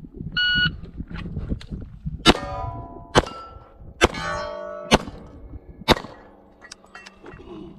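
A shot timer's start beep, then five semi-automatic pistol shots about a second apart, the steel target plates ringing after the hits. This is one timed string on the steel plates, about five and a half seconds from beep to last shot.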